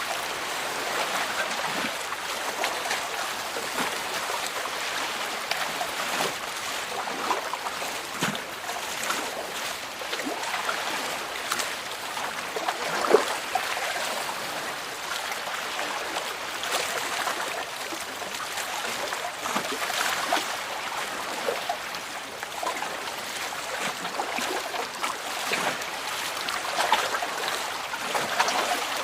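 Elephants splashing and sloshing in muddy water while bathing, heard as an irregular run of small splashes and trickles, with one louder splash about thirteen seconds in.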